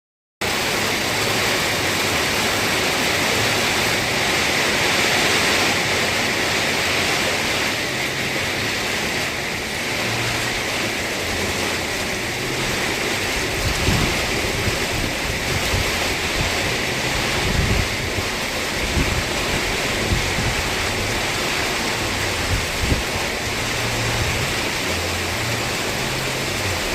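Steady heavy rain falling. From about halfway through, irregular low thumps and rumbles join it.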